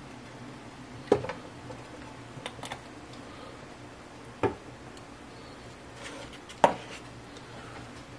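Three sharp knocks and a few lighter clicks of a glass oil bottle and cookware being handled on a stovetop, over a low steady hum.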